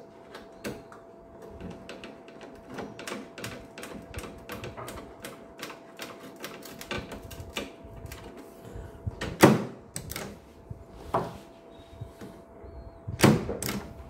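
Screwdriver driving the fastening screws back into a microwave's door switch assembly: a run of quick small clicks, about four a second, then a few louder knocks in the last third.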